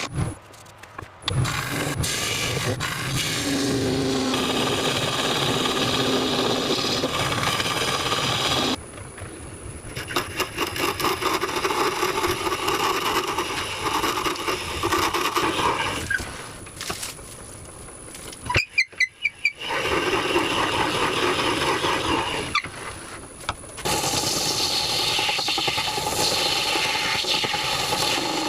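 Woodworking machine and tool noise, wood being cut and shaped in a string of short clips, with high squealing tones in places. One stretch has a rapid even chatter and one has a few sharp knocks.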